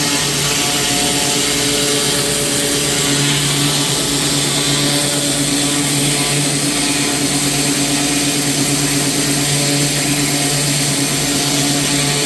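Gas-engine pressure washer running steadily, its engine humming under the hiss of the high-pressure water spray.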